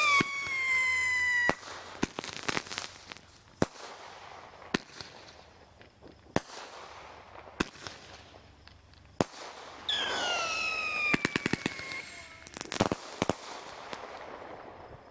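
Consumer fireworks going off, with scattered sharp bangs. Two whistles fall in pitch, one at the start and one about ten seconds in, each lasting a couple of seconds. A quick run of crackling pops follows the second whistle.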